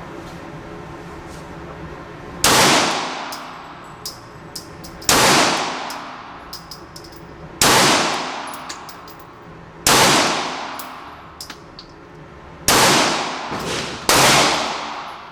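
A Glock 26 Gen 4 9mm pistol firing six slow, deliberate shots about two to three seconds apart, the last two closer together, each shot ringing out and dying away over about a second. Light clinks sound between the shots.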